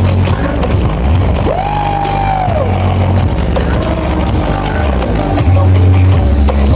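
Loud, bass-heavy dance music played through a huge carnival sound system of stacked speaker cabinets, with long, deep bass notes that change every second or so. About a second and a half in, a tone slides up, holds for about a second and slides back down.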